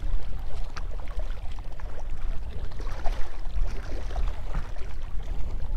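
Wind buffeting the microphone with a steady low rumble, over water lapping against the boat.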